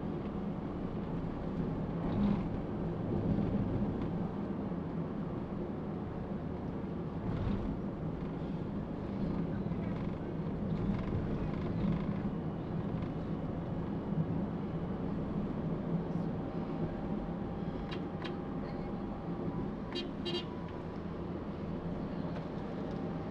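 Steady engine and road noise of a Toyota Calya being driven, heard from inside the car, with a faint held tone for a few seconds past the middle and a few light clicks near the end.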